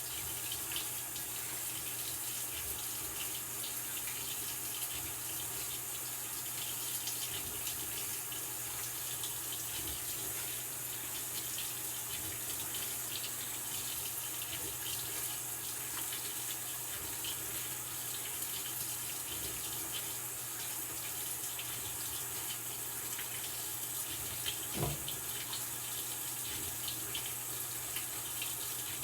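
Maytag Bravos XL top-load washing machine with water running steadily into the tub, over a faint steady hum. There is a single thump about 25 seconds in.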